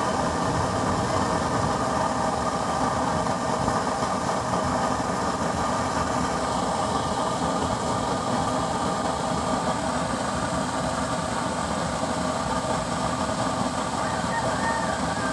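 Oil-fired 1-inch nozzle burner burning steadily, a constant rushing flame noise with a steady hum under it.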